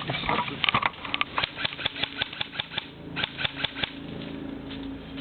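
A quick run of sharp clicks or crunches, about four or five a second for roughly three seconds, giving way near the end to a steady low hum.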